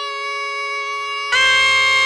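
Surnai, a Rajasthani double-reed shawm, holding a nasal melody note over a second wind instrument's unchanging drone note. Just over a second in, the sound jumps sharply louder and harsher.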